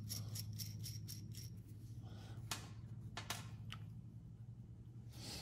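A small metal nut being spun off a threaded rod by hand, with faint metallic ticking about five times a second, then a few separate light clicks as small metal parts are set down on a bench. A steady low hum runs underneath.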